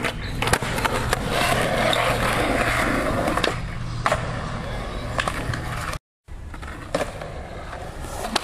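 Skateboard wheels rolling on concrete, with several sharp clacks as the deck lands and strikes the surface; the loudest comes about half a second in, right after an ollie.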